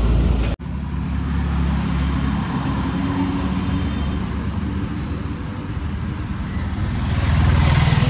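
Motorcycle running on the road, a steady low engine rumble with road noise, growing louder near the end. The sound breaks off abruptly about half a second in and picks up again.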